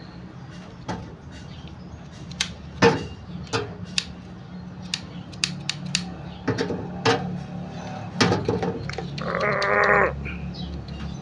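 Scattered sharp clicks and knocks of hand work on a Suzuki Scrum's rear door lock, over a steady low hum. About nine seconds in comes a wavering, bleat-like call lasting about a second.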